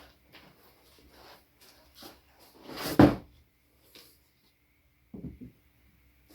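Packaging and parts being handled while unboxing a laser engraver: short rustles and scrapes, a loud knock about three seconds in, and a low thud a couple of seconds later.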